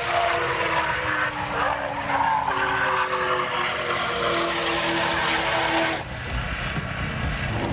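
A Lamborghini Huracán's V10 at full throttle, blasting past and pulling away on a high-speed run. The engine pitch slides down as it passes, then climbs again from about three seconds in. About six seconds in the engine note gives way to a low, even rumble.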